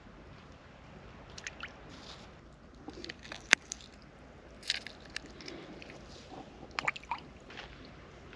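Small wet squelches and crunches as horse mackerel are cleaned by hand, with scattered short sharp clicks, the loudest a little past a third of the way in.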